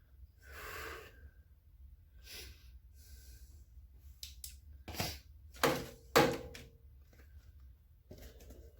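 Handling noises of tools and parts during washing-machine reassembly: soft rustling, then three sharp knocks and clicks about five to six seconds in, the last ringing briefly.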